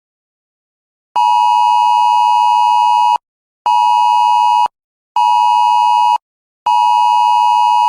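Electronic emergency-alert attention tone: a steady beep that starts about a second in. It sounds one long beep of about two seconds, two shorter beeps of about a second each, then another long beep, with short gaps between them.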